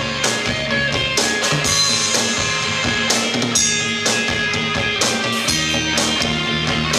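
Rock band playing live: a drum kit with frequent cymbal and drum hits under electric guitars.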